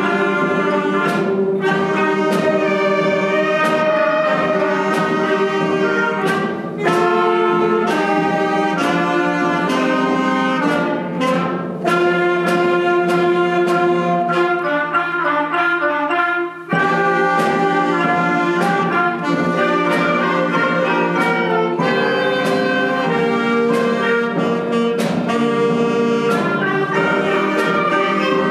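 A student concert band plays a piece. Trumpets, clarinets and flutes hold chords, and percussion strikes mark the beat.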